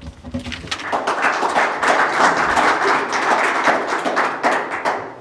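Audience applauding: many hands clapping at once, building up over the first second and dying away near the end.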